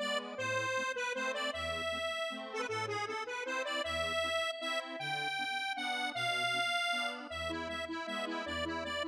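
Background music: a melody of held notes over a bass line that changes note about once a second.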